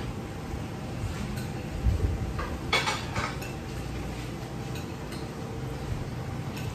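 Spoons and forks clinking and scraping against ceramic plates and bowls as people eat, with a quick cluster of clinks about three seconds in. There is a dull bump just before it, over a low background hum.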